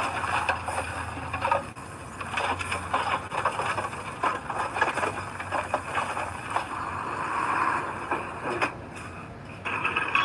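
Heavy earthmoving machinery at work: a diesel engine running under irregular scraping and clattering, as soil and metal grind together.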